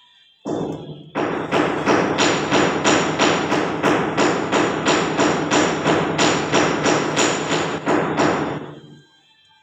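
Steel plastering trowel scraping stucco across a concrete-panel wall in quick, even strokes, about three a second, starting about half a second in and stopping shortly before the end.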